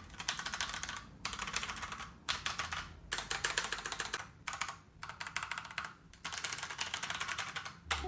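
Fast typing on a Logitech POP Keys mechanical keyboard with TTC Brown tactile switches: quick key clicks in about five runs, each broken off by a brief pause.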